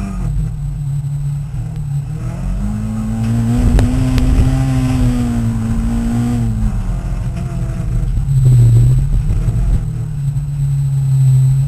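Peugeot 306 RS race car engine heard from inside the cabin at racing speed. The engine climbs in revs about two and a half seconds in, holds there, and drops back around seven seconds in. It surges again near nine seconds, the loudest moment, over a constant low rumble.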